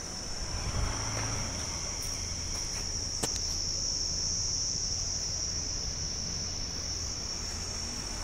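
Steady high-pitched drone of insects, over a low rumble, with a single sharp click about three seconds in.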